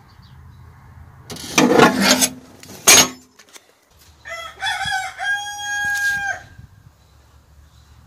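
A rasping burst and then a single sharp knock, the loudest sound here; about four seconds in a rooster crows, a few broken notes and then one long held note.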